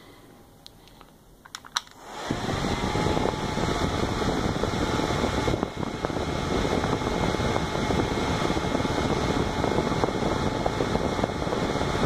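A few clicks, then a Windmere Curly Top hair dryer switched on at its high speed about two seconds in: the motor and five-blade metal fan spin up quickly into a steady rush of air with a faint whine, and keep running.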